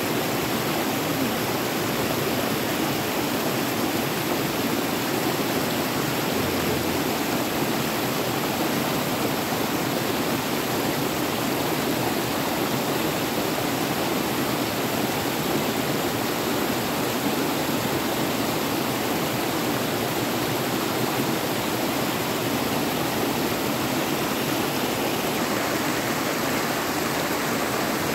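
Flowing river water rushing steadily, with no breaks or distinct events.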